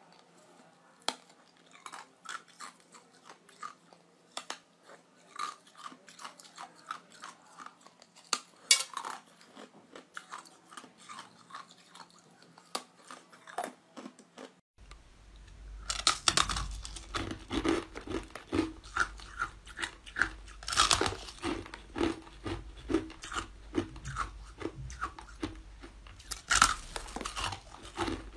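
Ice being bitten and chewed, with a rapid string of sharp cracks and crunches. About halfway, the crunching becomes louder and closer, with a low steady hum underneath.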